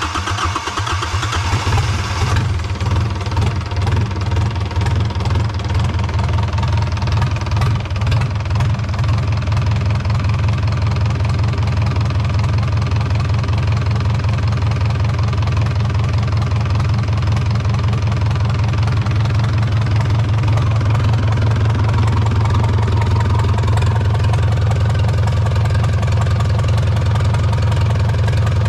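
Yanmar 4JH3E four-cylinder marine diesel engine, freshly rebuilt, running on its first test start after reassembly. It sounds rougher for the first couple of seconds, then settles into a steady idle.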